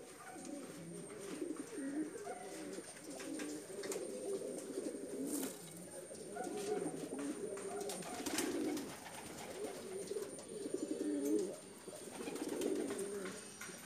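Domestic fancy pigeons cooing, a low warbling coo repeated in phrases of about a second, one after another.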